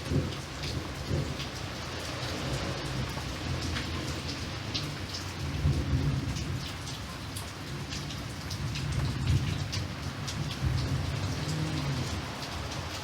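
Steady rain, with individual drops tapping on a surface, over low rolling thunder that rumbles on and swells a few times.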